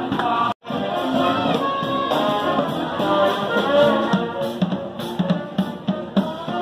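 Live brass band with a drum kit playing, horns carrying the tune. The sound cuts out for a split second about half a second in.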